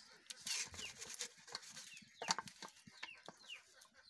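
Hands rubbing turmeric into raw chicken pieces on a steel plate: wet slaps and sharp clicks of meat and fingers against the metal, loudest a little over two seconds in. Birds chirp in the background with short falling calls, over and over.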